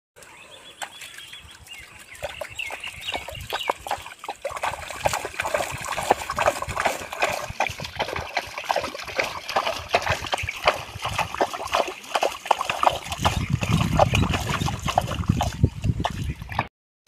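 Water splashing and sloshing in quick, irregular slaps that grow denser about two seconds in, with a low rumble joining near the end.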